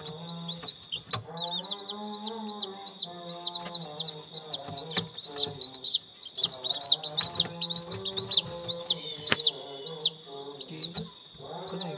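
Newly hatched chicks peeping in an egg incubator: a run of short, high chirps, about two to three a second, growing louder towards the middle and stopping shortly before the end, with one more peep at the very end.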